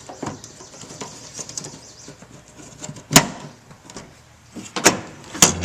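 Work on a pickup tailgate's latch and handle parts: a few sharp clicks and knocks among smaller handling noises, the loudest about three seconds in and two more near the end.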